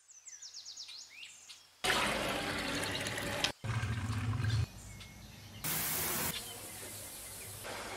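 Birds chirping for under two seconds. Then a series of abruptly cut cooking sounds: a rushing noise as black-eyed peas are tipped into a metal strainer, and minced onion being stirred in hot oil.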